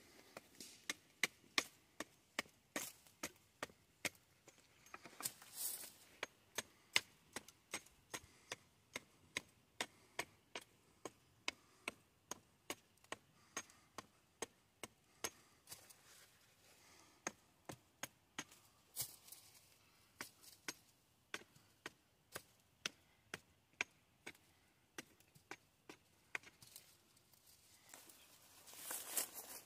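Wood being chopped with a hand blade: a steady run of sharp strikes at about two a second, some harder than others.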